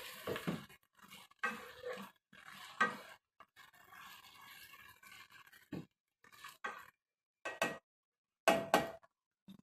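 Spatula scraping and knocking against a nonstick pan while stirring chicken pieces frying in oil, in irregular short strokes with a faint sizzle between them.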